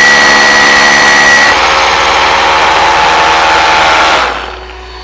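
Cordless rotary hammer drilling into concrete, with its dust-extraction vacuum attachment running. The sound shifts about a second and a half in and stops about four seconds in, leaving a faint hum.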